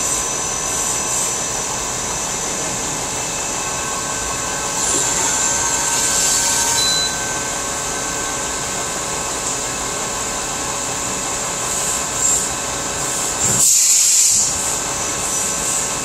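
Okuma CNC lathe running a program in single block with the feed turned down, its spindle turning at about 570 rpm: a steady machine hum with faint whining tones. Two bursts of hiss come over it, about five seconds in and again near the end.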